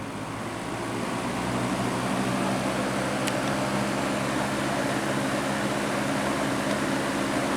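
Lakewood 20-inch box fan (model 200) speeding up after being switched from low to medium: the rush of air and the motor-and-blade hum rise over the first couple of seconds, then settle into a steady run at the higher speed.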